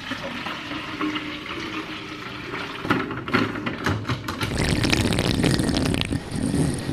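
Water pouring and sloshing in a large plastic water bottle, getting fuller and louder from about four and a half seconds in, as the bottle is lifted and drunk from near the end.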